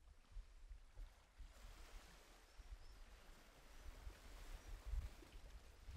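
Very faint nature ambience of running water under a soft hiss, with a few faint high chirps in the middle.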